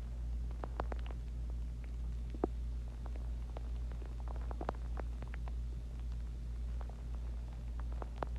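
Human stomach gurgling while digesting a meal and water: many short, irregular gurgles and pops over a steady low hum.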